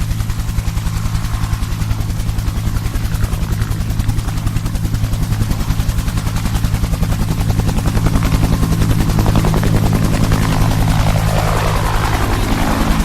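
Helicopter sound effect: a steady, fast rotor chop over a low engine drone, with a rush of higher sound swelling near the end.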